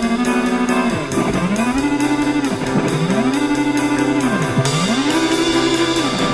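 Background music: a guitar-led track with a steady beat and a low note that slides down and back up in pitch about every second and a half.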